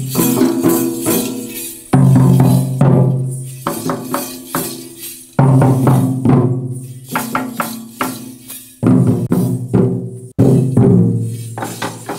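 Bison Horn Maria dance music: large double-headed wooden barrel drums beaten with a stick and the hand, with jingling bells, and a group of voices singing in short phrases that start loud and fade.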